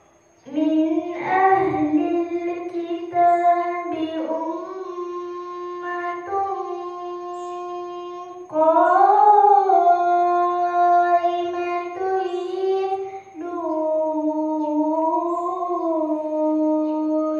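A girl reciting the Quran in tarannum, the melodic chanting style: long held notes with ornamented turns, sung in three phrases, the second starting about eight and a half seconds in and the third about thirteen seconds in.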